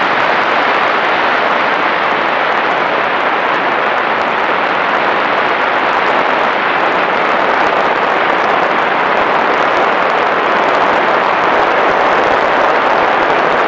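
Steady, loud rush of wind and airframe noise picked up by the onboard camera of a small fixed-wing UAV in flight.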